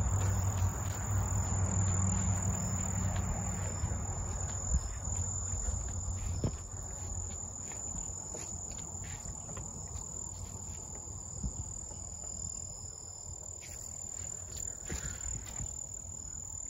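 Crickets trilling in one steady, unbroken high-pitched drone. Louder rustling and movement noise in the first few seconds fades away, followed by a few faint clicks.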